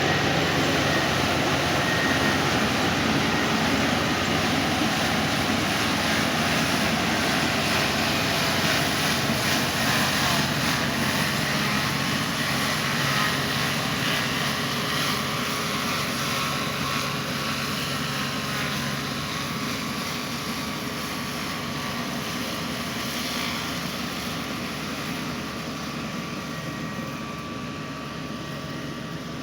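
KSA GreenGold 220 track combine harvester running: a steady, dense engine and machinery noise that slowly gets quieter over the second half.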